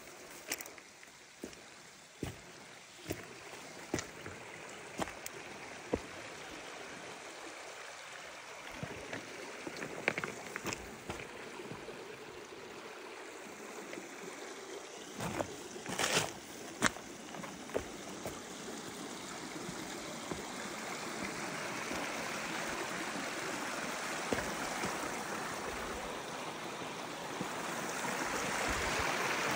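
Mountain stream running over rocks, growing louder toward the end. Sharp steps on stones sound about once a second in the first few seconds, and a few louder knocks come around the middle.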